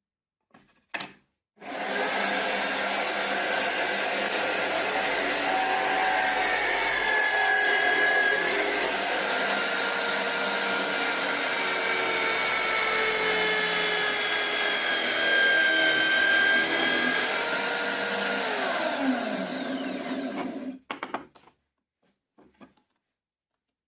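An electric power tool runs steadily for about nineteen seconds, then is switched off; its pitch falls as it spins down and it stops suddenly. A few light knocks come just before it starts and after it stops.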